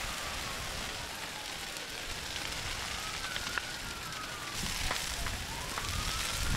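Wildfire burning through trees and brush: a steady rush of flames with scattered crackles and pops. Behind it, a siren wails, slowly rising and falling in pitch.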